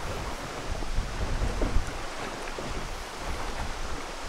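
Wind buffeting the microphone, a low rumble over a steady rush of wind and water, with a few faint ticks.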